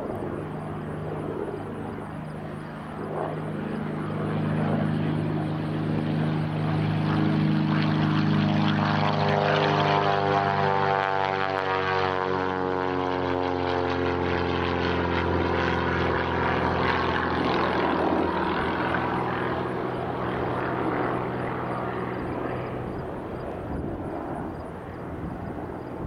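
Piper PA-32R-300 Lance's six-cylinder Lycoming engine and propeller at full take-off power, accelerating down the runway and climbing out. It grows louder to a peak about halfway through as it passes, then fades as the plane climbs away.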